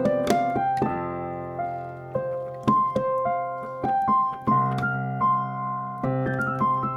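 Piano music: a melody of single struck notes moving over held low chords.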